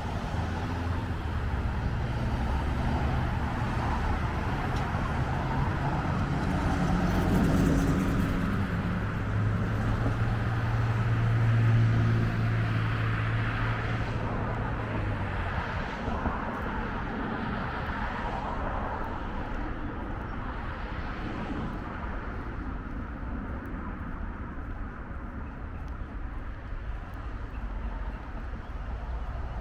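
Road traffic noise: a steady wash of passing cars, with one vehicle's low engine hum growing louder to a peak about twelve seconds in, then fading away.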